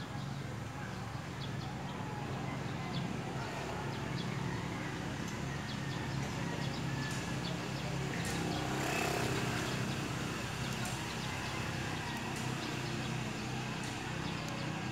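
Steady outdoor background noise with a low hum, swelling about nine seconds in, and scattered light clicks as the metal detector's control box and cables are handled.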